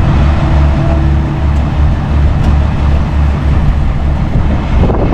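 A heavy diesel engine runs steadily under load during the winch recovery. A faint steady whine stops about a second and a half in.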